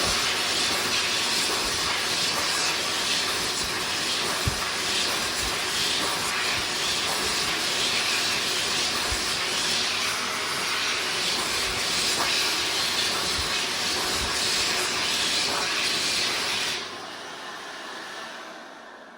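PHS SMARTdri Plus hand dryer blowing a steady, loud rush of air, then cutting off about seventeen seconds in and winding down.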